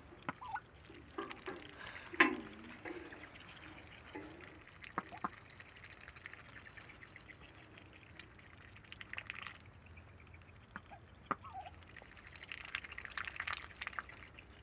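Ducks dabbling and drinking at a shallow water dish: quiet, irregular splashes, drips and bill clicks in the water, with a couple of short, soft low calls.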